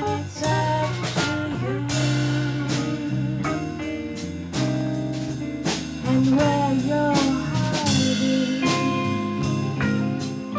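Indie rock band playing: electric guitar, electric bass and drums, with a steady drum beat.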